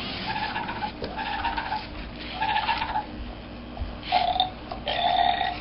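Zoomer Dino robot dinosaur toy making electronic grunting, burp-like calls from its speaker: five short calls on a steady pitch, spaced over a few seconds.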